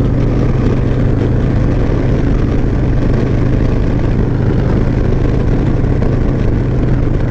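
Harley-Davidson V-twin motorcycle engine running steadily at highway cruising speed, mixed with wind and road noise on the moving bike.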